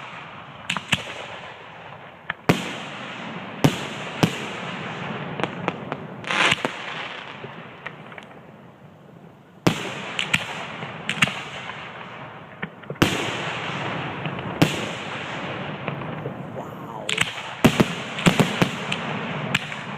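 Aerial firework shells bursting in a display: loud sharp bangs at uneven intervals of one to three seconds, several close together near the end, over a continuous noise of other bursts and their echoes.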